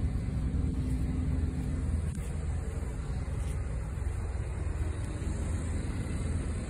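Semi truck's diesel engine idling, a steady low rumble.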